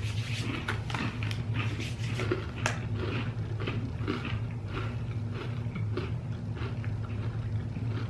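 A crunchy oat granola bar (Nature Valley Crunchy Almond Butter) being bitten and chewed: irregular dry crunches several times a second, over a steady low hum.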